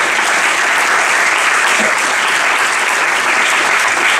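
Audience applauding: steady, dense clapping with no break.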